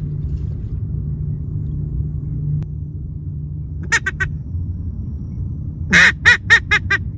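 Blue-winged teal quacks: a quick run of three short quacks about four seconds in, then a louder run of about five quacks near the end that fade and speed up. A steady low rumble lies under them.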